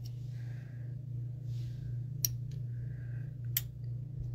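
A lamp's inline cord switch clicking as it is toggled off and back on: two sharp clicks, about two and a half and three and a half seconds in, over a steady low hum.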